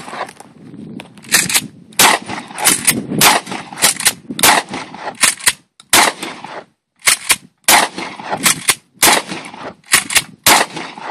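Shotgun firing a rapid string of about a dozen shots, roughly one a second, each a sharp, loud report.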